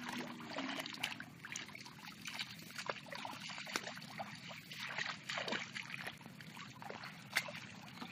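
Hands splashing and dabbling in shallow, muddy paddy water as children grope for fish, with irregular small splashes and wading sloshes.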